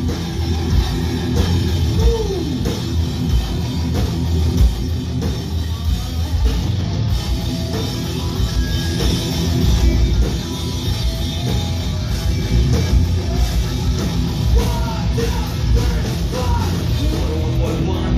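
A punk rock band playing live and loud: distorted electric guitars, bass and drums, with sung vocals over them.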